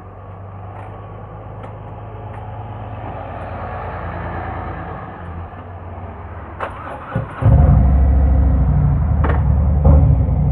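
Harley-Davidson Road King's V-twin engine starting about three-quarters of the way in, with a few clicks just before, then running loud and low with an even beat. Before it, a steady background rumble swells and fades.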